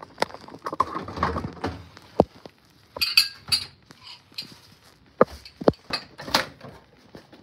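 Handling noise as a phone and a plate of cut fruit are carried: rustling in the first couple of seconds, then a string of separate sharp knocks and clinks.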